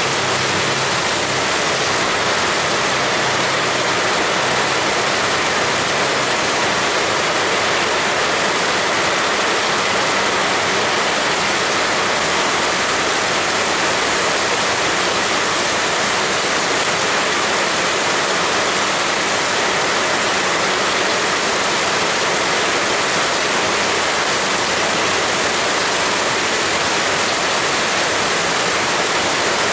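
Heavy rain pouring steadily, a dense, even hiss with no let-up.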